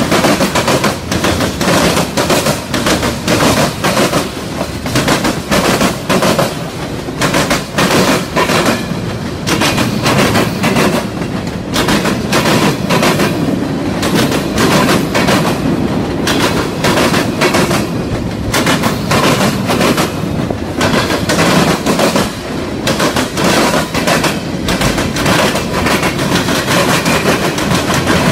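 Loud passing freight train of tank cars, flatcars and gondolas: steel wheels clatter over the track in a continuous run of sharp clicks and knocks over a steady rolling rumble.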